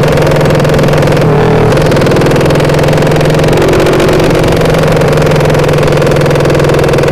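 Loud race-built drag motorcycle ('sleep engine') running under way at steady revs, heard from the rider's seat, with a short change in the note about a second and a half in.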